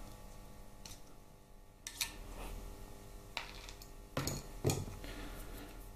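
Screwdriver and pick levering a steel circlip off a shaft: light metallic scraping with a handful of sharp clicks spread through, the loudest a little past the middle.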